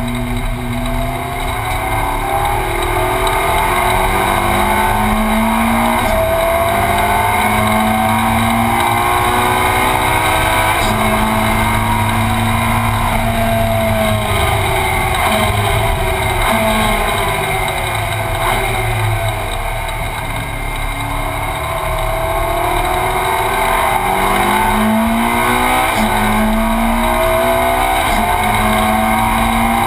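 Ferrari 458 Challenge's naturally aspirated V8 heard from inside the cabin at race pace, its pitch repeatedly climbing through the revs and dropping back at each gear change, with falling sweeps as it slows.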